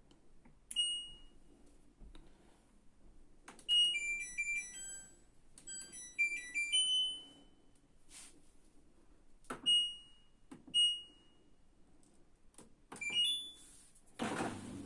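LG E1296ND3 washing machine's control panel beeping as its buttons are pressed: single short beeps and several quick runs of chime tones. Near the end a steady rush of water starts.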